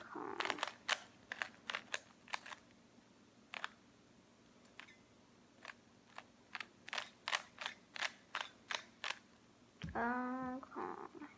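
Plastic Rubik's Cube layers being twisted by hand during a solve: irregular sharp clicks and clacks, sparse at first, then a quick dense run of turns. Near the end there is a short hummed vocal sound.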